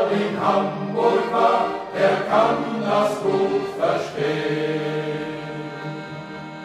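Sailors' shanty choir singing a German sea song in several voices. About four seconds in, the phrase ends on a long held chord that slowly fades.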